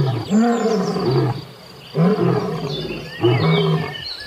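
Male lion roaring: a bout of deep, drawn-out roars, one after another about every second and a half.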